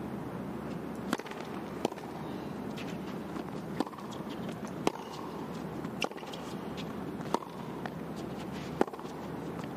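Tennis rally on a hard court: sharp pops of the ball off the racket strings and the court, about seven in all, spaced roughly a second or so apart, over a steady arena hum.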